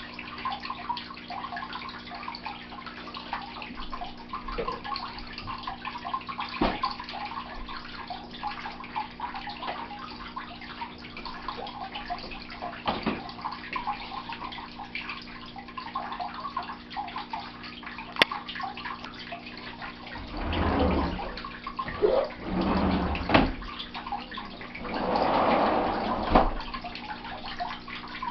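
A steady trickling, water-like noise over a faint low hum. From about 20 seconds in, a few louder bumps and rustles come and go, with one sharp knock.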